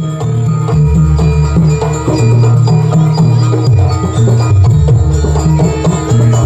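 Loud jaranan gamelan music: ringing struck metal percussion and drums over a heavy bass, played as a busy, continuous rhythm.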